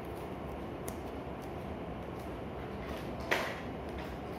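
Steady room hiss with a single sharp knock about three seconds in and a few faint ticks.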